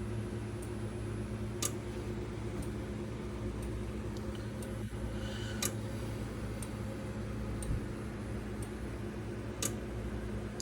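Faint regular ticking, about one click a second with a stronger click every four seconds, over a steady low electrical hum.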